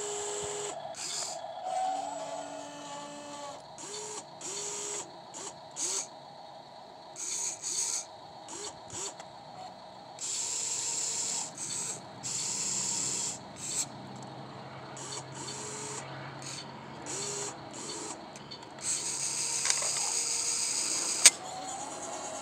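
Electric motors and gearboxes of an inexpensive RC excavator whirring in stop-start bursts as the boom, arm and bucket move, each burst lasting from a moment to a couple of seconds. A single sharp click near the end.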